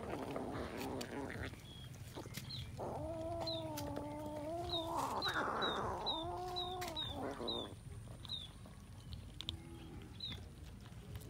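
Two long, drawn-out animal calls, each about two seconds, in the middle, over a run of short, high, falling peeps that come about twice a second.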